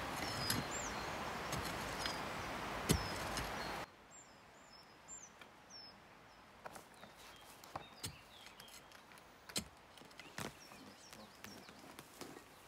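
Small birds chirping over a steady outdoor hiss that cuts off abruptly about four seconds in. After that, a few scattered soft knocks from a hand tool digging in the soil, with more chirps in between.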